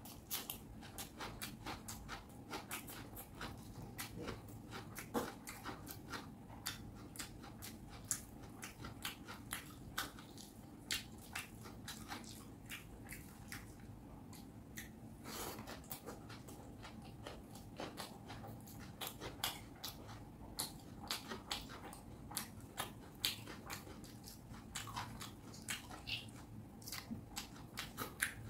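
Close-up chewing of fish curry and rice, with many irregular mouth clicks and smacks.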